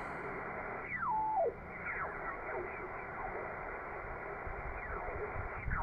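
Yaesu FT-450D transceiver on the 20-metre shortwave band: steady band hiss through its speaker, with whistling tones sliding down in pitch as the dial is tuned across signals, the largest about a second in and fainter ones after it.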